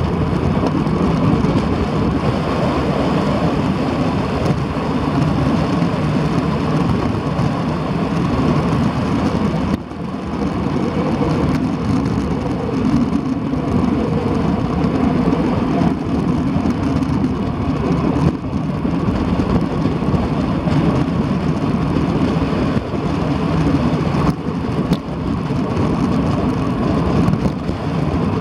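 Steady wind noise buffeting the microphone of a bike-mounted camera on a fast road-bike descent, with a brief dip about ten seconds in.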